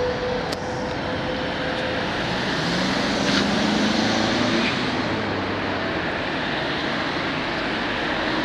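Road traffic: a steady rush of passing vehicles, with one engine note swelling and rising slightly about three to five seconds in.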